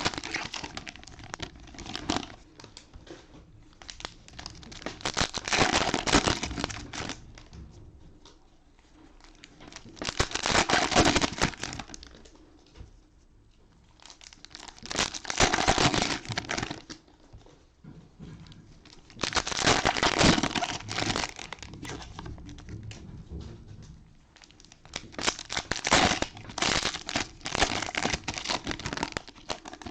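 Cellophane wrappers of trading card cello packs being torn open and crumpled by hand, in repeated bursts of crinkling a few seconds apart.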